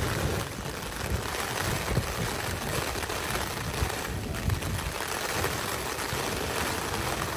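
Heavy rain and gusting wind beating on a camping tarp in a thunderstorm: a steady, dense hiss with a rumbling low end.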